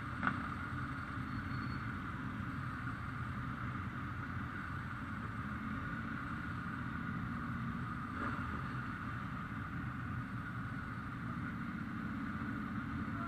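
Steady low rumble of Ducati motorcycle engines, with a brief click a moment after the start.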